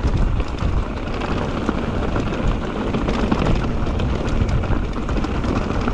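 Wind rushing over the camera microphone while an electric mountain bike rattles down a rough, wet trail: a steady low rumble with many small clicks and knocks from the tyres and frame on the ground.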